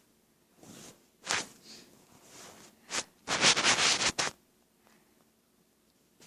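Slime being squished and stretched close to the microphone, in several short noisy crackling bursts, the longest and loudest about three to four seconds in.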